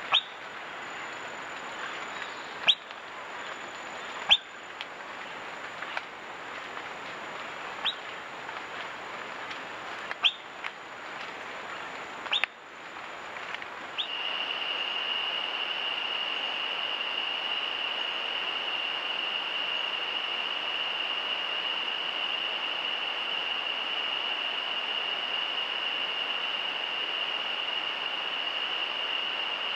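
Rainforest ambience. Short, sharp rising chirps come about every two seconds over a steady hiss, then after a cut a steady high-pitched insect drone takes over.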